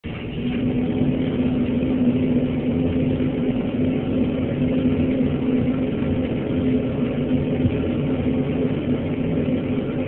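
Propane burner flame firing steadily: a loud, even rushing noise with a steady low hum running through it.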